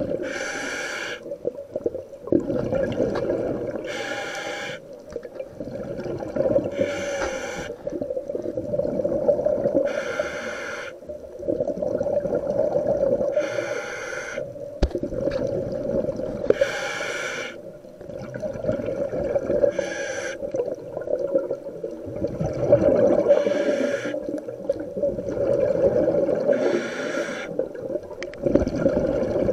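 Scuba diver breathing underwater through the regulator of a full-face mask: each breath is a short hiss of inhaled air followed by a longer bubbling rumble of exhaled air. The breaths come evenly, about one every three seconds.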